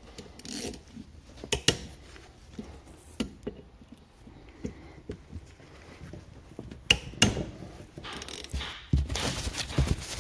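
Hand tools and metal parts knocking, clicking and scraping on a diesel high-pressure fuel pump while a 30 mm fitting is cracked loose, with a denser burst of scraping near the end.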